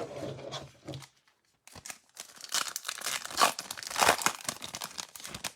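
Plastic wrapping on trading card packaging being torn open and crinkled: a light rustle at first, then after a short pause a louder, denser stretch of crackling and tearing.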